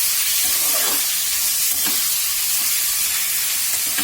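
Marinated chicken pieces sizzling in hot oil in a pan, with a spatula stirring and scraping them over a few times.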